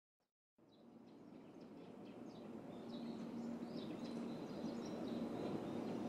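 Outdoor ambience fading in from silence, with birds chirping over a low hum that comes and goes.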